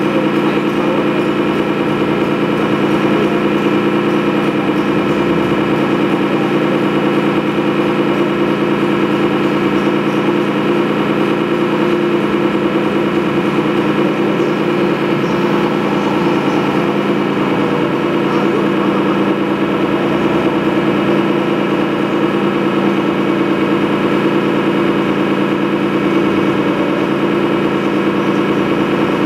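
Steady motor hum of the 1:8 scale model vehicle carrying the camera as it drives around the course, a constant droning tone with no change in pitch.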